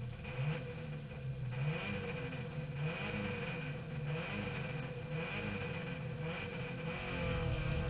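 Subaru Impreza N4 rally car's turbocharged flat-four engine, heard from inside the cabin, its revs rising and dropping several times.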